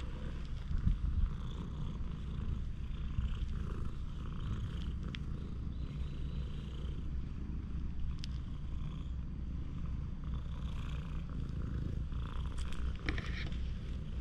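Domestic cat purring steadily while being stroked, a low continuous rumble.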